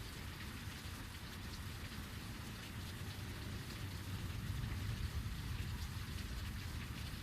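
Heavy rain falling steadily in a dense hiss, with a low rumble of distant thunder swelling a little about halfway through.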